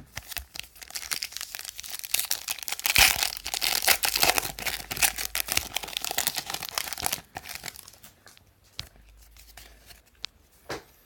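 A trading-card pack's plastic wrapper being torn open and crinkled, a dense crackling that runs for about seven seconds. After that come a few faint clicks of cards being handled.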